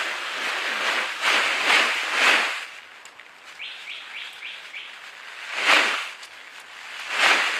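A small bird chirps a quick run of about five short sliding notes in the middle. Loud rasping bursts of noise come and go around it, several in the first half and again near the end.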